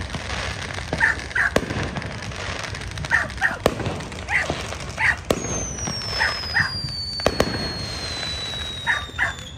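A dog barking repeatedly, mostly two barks at a time, over consumer fireworks going off with sharp bangs and crackle. From about halfway in, a long high whistle falls slowly in pitch.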